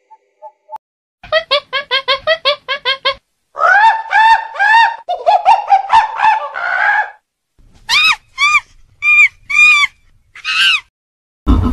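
Macaque calls: a quick run of about ten short pitched calls, then a string of longer calls that rise and fall in pitch, then five high, clear calls spaced apart near the end.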